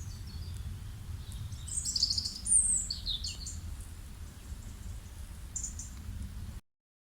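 Small birds chirping and whistling, with a quick run of calls about two seconds in and another short call near the end, over a steady low rumble. The sound cuts off abruptly just before the end.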